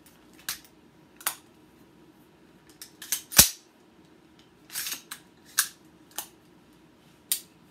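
Sharp metallic clicks and clacks of a carbine being handled and its action worked by hand, about seven or eight in all, with one heavier clack a little over three seconds in.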